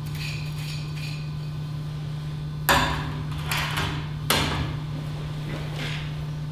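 A few sharp knocks of hard objects on a hard surface, two loud ones about a second and a half apart with lighter taps between and after, over a steady low hum.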